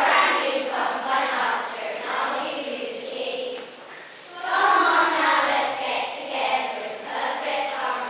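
A group of children singing together in unison, with a short break about four seconds in.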